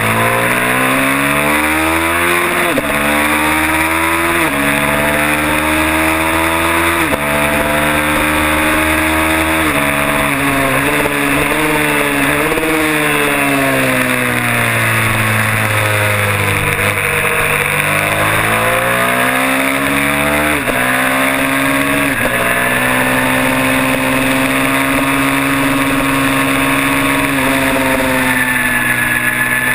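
Kawasaki parallel-twin race motorcycle engine heard on board at full throttle, its pitch climbing and dropping sharply at three quick upshifts early on. In the middle it winds down as the bike slows for a corner, then climbs again through two more upshifts and holds a steady high note, with wind rushing over the microphone throughout.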